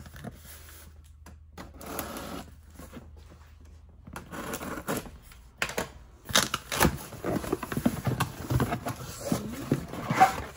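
A taped cardboard shipping box being opened by hand: sparse scraping and rustling at first, then from about six seconds in a busy run of crackling cardboard flaps and knocks as molded pulp packing inserts are handled.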